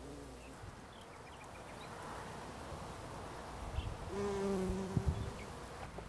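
A bee buzzing in flight, faint at first, then a clear steady buzz close to the microphone for about a second from around four seconds in. Two brief knocks come near the end of the loud buzz.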